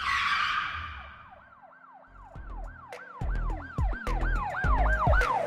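Intro sound design: a brief swoosh hit, then a siren-like wail that rises and falls about three times a second, with deep bass hits coming in after about two seconds.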